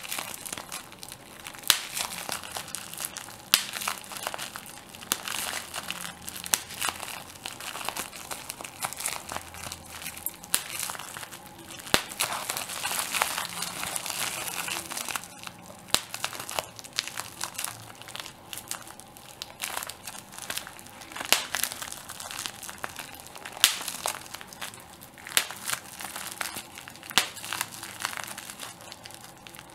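Plastic bubble wrap being crinkled and popped by hand: irregular sharp pops, several a second at times, over steady crinkling of the plastic sheet.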